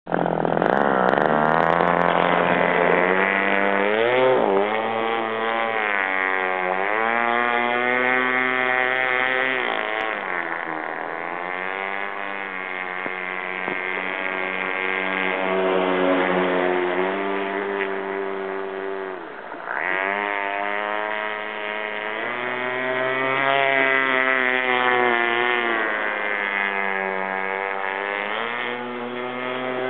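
Radio-controlled speedboat's motor running hard, its pitch swooping up and down as the throttle changes. The pitch and level drop sharply about 19 seconds in, then climb back.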